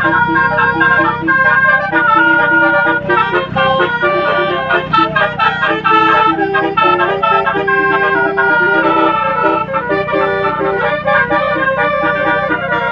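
Telolet bus horn: a bank of horns on a bus playing a quick tune of steady, organ-like notes, over a steady low rumble.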